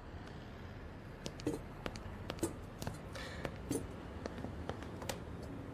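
Faint handling noise: soft rustling and a few scattered light taps as clothing is handled at a cardboard packing box.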